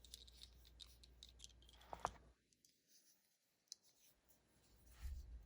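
Faint small clicks and scratches of metal knife parts being handled during reassembly of an automatic knife, with one sharper click about two seconds in, then near silence.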